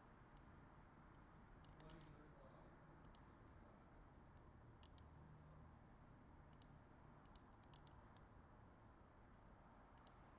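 Near silence: low room tone with faint, sharp clicks, about a dozen of them scattered through, often in pairs.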